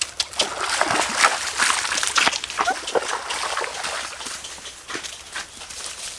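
Footsteps wading through a shallow rocky stream: irregular splashes of water kicked up with each step, louder over the first three seconds and fainter after.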